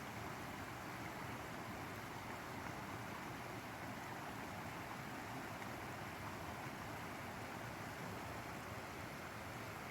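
Steady hiss of a light drizzle falling, an even noise without distinct drops or other events.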